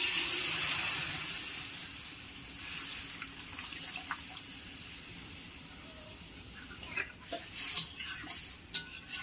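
Boiled masoor dal poured into a kadai of tomatoes frying in hot oil: a loud hissing sizzle at first that slowly dies down over several seconds. Near the end come a few sharp clicks of a utensil against the pan.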